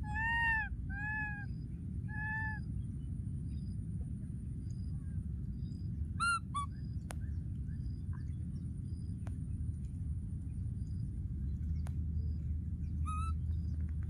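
Baby macaques calling with high, arched coos: three in the first two and a half seconds, two shorter falling calls about six seconds in, and one more near the end. A steady low rumble runs beneath them.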